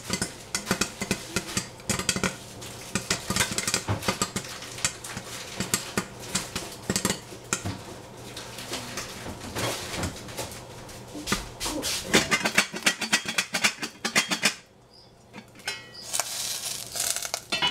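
Metal spatula clattering and scraping against a pan while stir-frying broccoli and capsicum, in quick irregular clinks. It pauses briefly near the end, then starts again.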